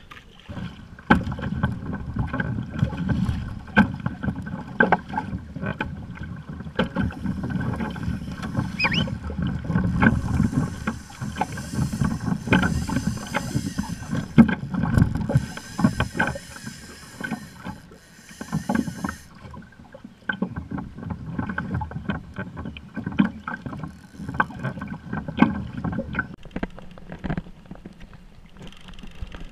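Water slapping and sloshing against the hull of a Hobie trimaran kayak moving on an ocean swell, with many irregular knocks from the hull and a low rumble of wind on the microphone. A higher hiss comes and goes through the middle.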